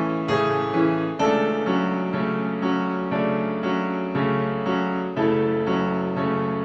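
Slow background piano music, a note or chord struck about every half second and left to ring.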